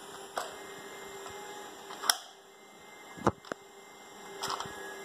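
Handling clicks and knocks from a 3D-printed 37 mm revolver-type launcher: about five sharp clicks, the loudest about two and three seconds in, over a steady low hum.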